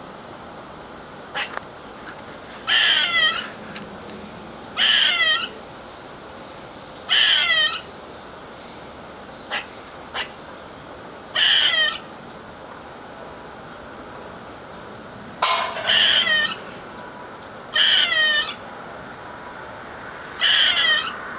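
Squirrel calling: about eight loud bursts, each under a second, of rapid downward-sliding chirps, repeated every two to four seconds, with a few short clicks between them.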